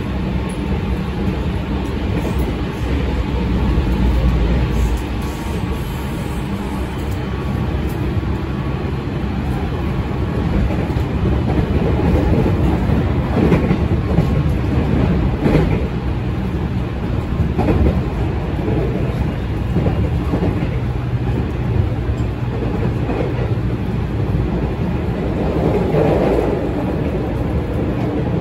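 Running sound of a JR West 207 series electric commuter train, heard from inside the car: a steady rumble of wheels on the rails with a scattering of clacks over rail joints. Under it is a low steady hum from the train's Mitsubishi transistor-inverter traction drive.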